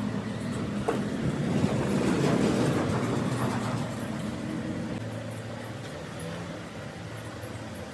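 Workshop machine running with a steady low hum, with a louder stretch of rough noise from about one and a half seconds in that eases off by about four seconds.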